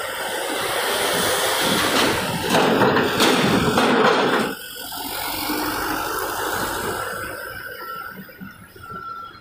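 A truck driving over the steel grating of a ferry's vehicle ramp close by: a loud rushing noise of tyres on the metal plates with several clanks and knocks. It builds over the first few seconds and drops off suddenly about four and a half seconds in, leaving a quieter rumble of more vehicles coming down the ramp.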